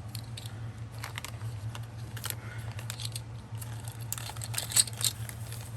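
Light clicks and rustling of small craft items and plastic packaging being handled, with a few sharper clicks about four to five seconds in, over a steady low hum.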